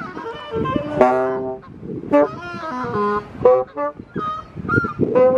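Reed instruments played in free improvisation: a run of short, overlapping held notes, some bending in pitch, with geese honking among them.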